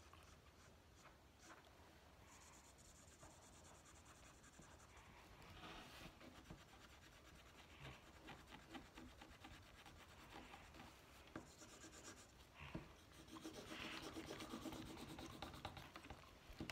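Faint scratching and rubbing of marker tips colouring on paper, a little stronger near the end.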